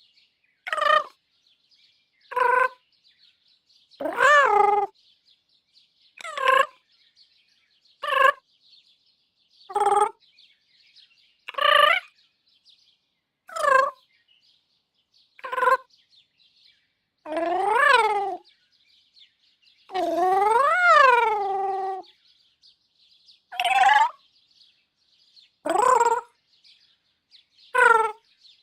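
Cute robot droid vocalizations from the 'Bleep' sound library: a string of short, chirpy electronic voice blips with pitch bends, about one every two seconds. Two longer ones past the middle rise and then fall in pitch.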